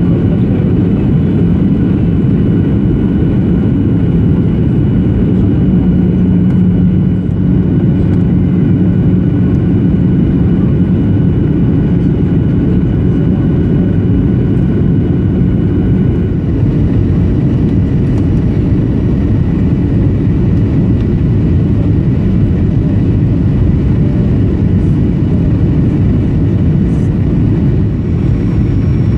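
Steady cabin noise of a Boeing 737-800 during descent on approach, heard from a window seat near the wing: a loud, even rumble of the CFM56-7B engines and airflow.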